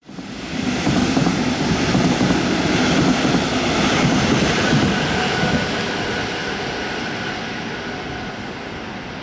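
Red Deutsche Bahn regional train of double-deck coaches passing below and running away along the track. Its rumble and wheel noise are loudest in the first few seconds, then slowly fade as it recedes.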